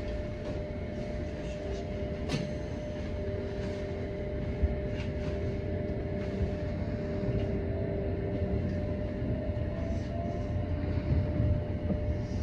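Electric commuter train running along the track, heard from the front of the train: a steady rumble from the wheels under a steady motor hum, with a sharp click about two seconds in.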